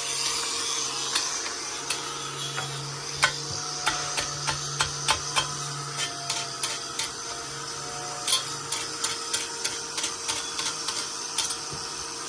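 Irregular light taps and clicks, several a second at times, over a steady low hum.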